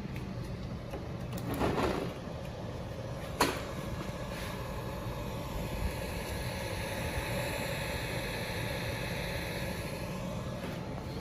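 Steady low room noise, with a brief rustle about two seconds in and one sharp click a little after three seconds; a faint steady hum sits under the middle of it.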